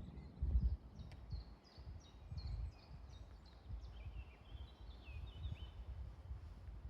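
A small songbird singing a run of short, high, quickly repeated notes, about three a second, with wind rumbling on the microphone, gusting loudest near the start.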